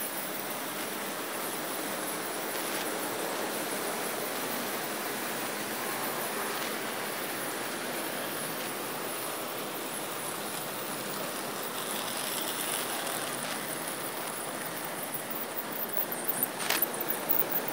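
Märklin H0 model trains running on the layout: a steady rolling rattle of small metal wheels on track with motor whir. About sixteen seconds in, sharper clicks come as passenger coaches pass close by.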